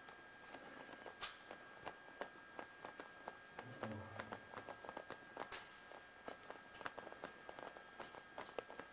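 Faint footsteps on the sandy floor of a slot canyon, an irregular run of soft steps and scuffs several times a second, with a brief low sound about four seconds in.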